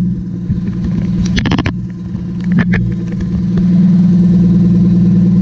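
Willys truck engine running steadily at idle, getting louder about three and a half seconds in and holding there.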